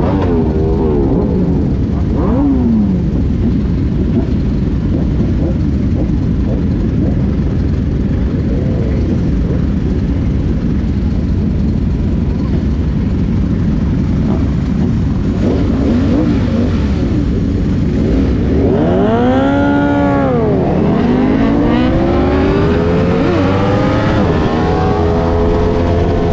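Several sport motorcycles idling together at a stop, with a few short throttle blips near the start. About nineteen seconds in, an engine revs up and back down, then the bikes pull away, engine pitch climbing as they accelerate through the gears with wind rush.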